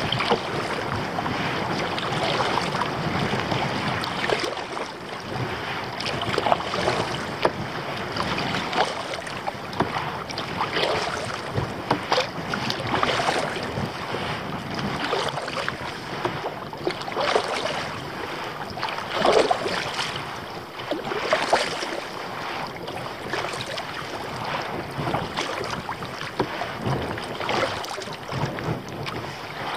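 Kayak paddle strokes splashing in choppy water, repeating every second or two, with wind buffeting the microphone.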